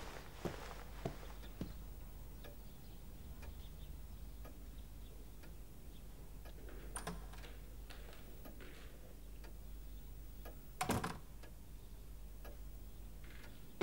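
A clock ticking steadily, about two ticks a second, in a quiet room, with one short louder knock about eleven seconds in.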